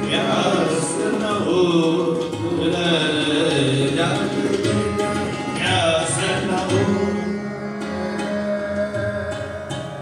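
Sikh kirtan: male ragis singing a Gurbani hymn, accompanied by a harmonium's steady held notes and tabla.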